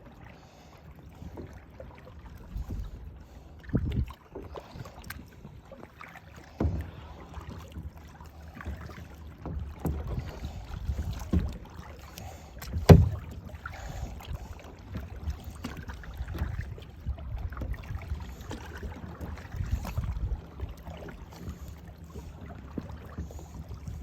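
Kayak paddling with water sloshing and irregular knocks and bumps against the kayak, the loudest knock about halfway through.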